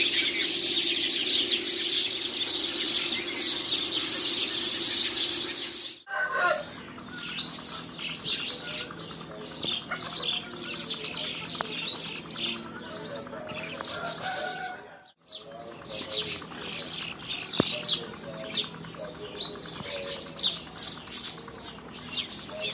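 Many small birds chirping in trees at dawn. For the first six seconds the chirping is dense and continuous over a low steady hum. After two cuts, about six and fifteen seconds in, it turns into more scattered, separate chirps and calls.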